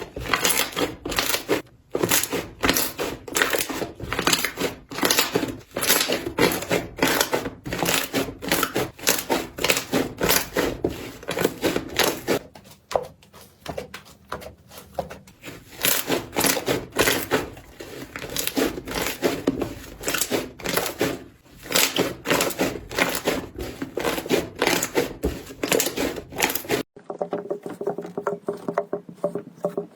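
Slime being squeezed and pressed by hand, giving fast runs of crackling, popping clicks, with a short lull partway through. Near the end it switches abruptly to a fainter, softer slime sound.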